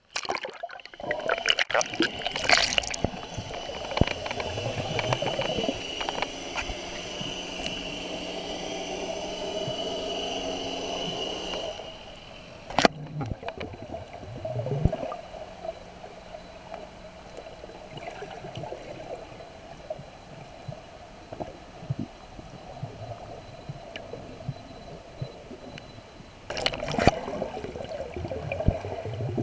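Water heard through a camera dipped under the surface: muffled sloshing and gurgling, with a steady hum for the first dozen seconds or so, a sharp knock about thirteen seconds in, and louder sloshing near the end.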